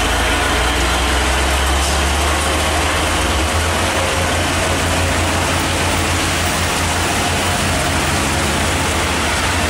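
Heavy diesel truck engine running low and steady, under the even hiss of heavy rain.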